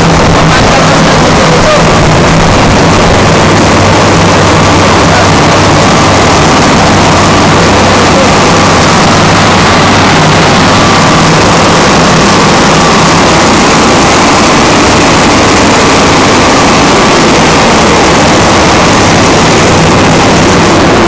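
Large standby generator set running steadily: a loud, constant engine drone with a low hum, heard close to the enclosure while it supplies power during a mains outage.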